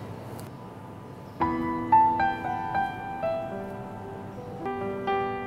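Background piano music: after a quiet first second or so, a slow melody of held notes comes in.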